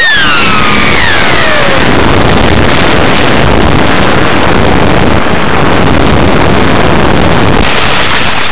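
Loud, steady rush of air over the onboard camera of a ParkZone Stryker F-27Q electric flying wing in flight. In the first second and a half the electric motor's whine rises and falls in pitch.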